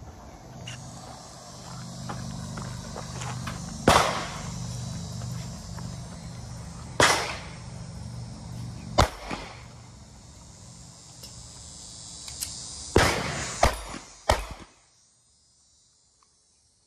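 Six handgun shots over a low steady hum: three single shots a few seconds apart, then three in quick succession near the end. After the last shot the sound drops away suddenly.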